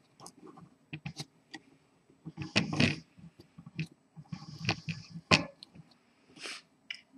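Handling noise: scattered light clicks and taps, with two longer rustling scrapes, the first about two and a half seconds in and the second around five seconds in, ending in a sharp click.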